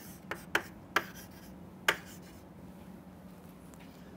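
Chalk tapping and scraping on a chalkboard as dimension ticks and letters are drawn: four sharp taps within about the first two seconds.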